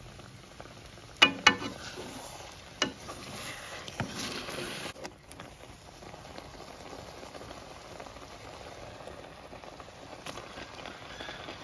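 Scrambled egg and dried-chili mixture frying in a non-stick wok, with a steady sizzle. A spatula stirs it, scraping and knocking sharply against the pan several times in the first few seconds.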